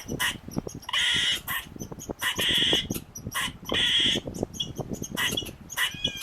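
Eastern squirrel alarm calling: a run of short, sharp chips broken by three longer, harsh rasping calls about a second and a half apart.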